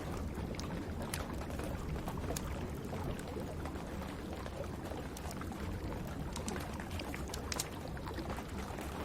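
Wood fire crackling with scattered sharp pops, more of them about two-thirds of the way through, over a steady hiss of rain and a low rumble.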